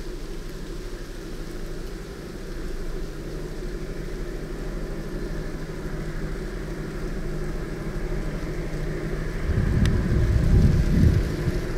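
EMD-built diesel freight locomotive approaching inside a railway tunnel: a steady low engine drone that slowly grows louder, turning into heavy deep rumbling surges from about nine and a half seconds in.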